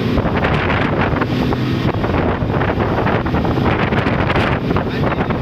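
Wind buffeting the microphone, with a steady low engine hum underneath.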